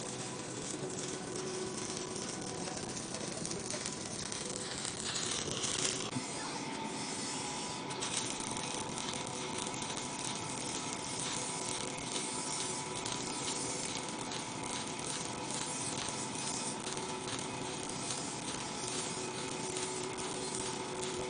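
Stick (shielded metal arc) welding: the electrode's arc crackling and sizzling steadily, with a brief hissier flare about five seconds in and a faint steady hum underneath.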